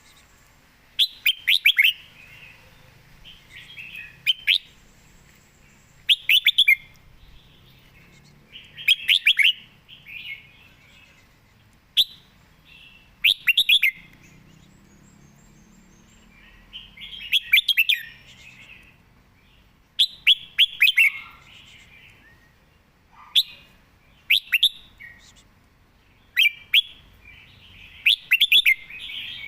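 Red-whiskered bulbul singing in short, quick phrases of chirping notes, one phrase every two to three seconds.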